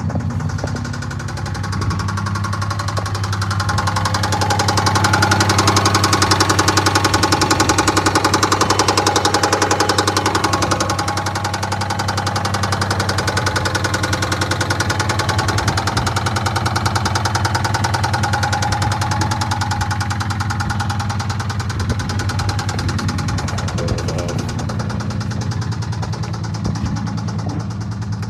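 2009 Dodge Charger's 3.5-litre V6 running with a fast, steady knock, louder for several seconds a few seconds in, then stopping suddenly at the end. The knock is from worn rod bearings.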